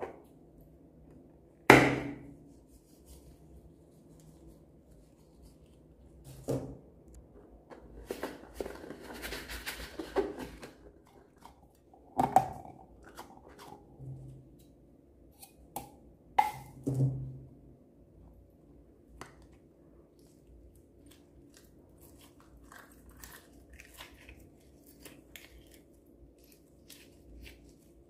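Hands squeezing and cutting open slime-filled balloons: scattered soft clicks and squishes with a few louder knocks, the loudest about two seconds in, and a few seconds of continuous crackly noise around eight to eleven seconds in.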